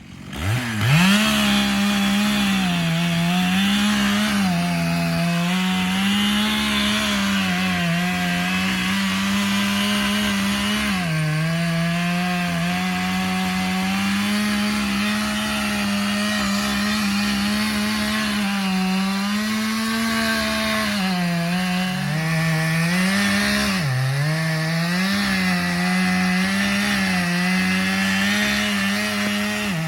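Gas chainsaw revving up and cutting into a tree trunk for the felling cut. Its engine note dips repeatedly as the chain loads up in the wood, then climbs back to full revs.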